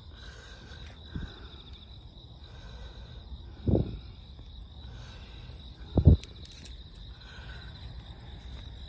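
Steady high-pitched insect song outdoors, with three short low thuds, about a second, four seconds and six seconds in, the last the loudest.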